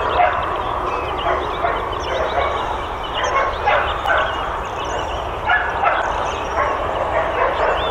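Many dogs at a boarding kennel barking and yelping together in a continuous, overlapping chorus.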